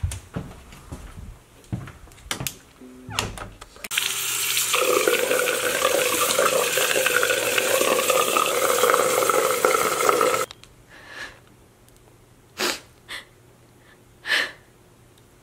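Bathroom sink faucet turned on and running hard, water splashing as hands rinse the face; it cuts off suddenly after about six seconds. A few light knocks and footsteps come before it, and a few short breaths after.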